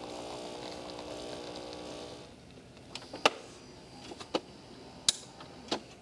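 Gaggia Velasca super-automatic espresso machine's pump humming steadily as it finishes pulling an espresso shot, cutting off about two seconds in. A few light clicks follow.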